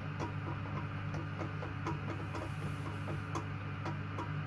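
Small, irregular clicks a few times a second as a rusty zinc-plated toilet seat hinge bolt is twisted undone by hand along its long thread, over a steady low hum.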